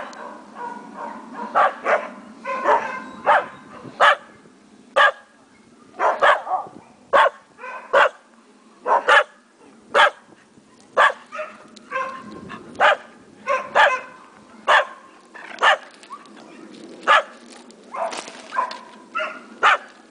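Dog barking over and over, short sharp barks at roughly one a second.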